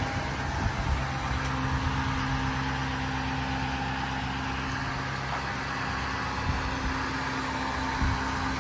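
The truck's Duramax 6.6-litre V8 turbo-diesel runs steadily, heard from outside the truck, with a small knock near the end.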